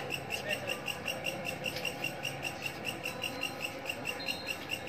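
A night insect, cricket-like, chirping steadily in an even pulse of about eight chirps a second.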